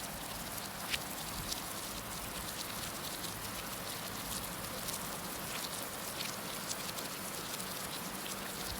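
Heavy rain falling steadily: a constant hiss with many scattered sharp drop ticks.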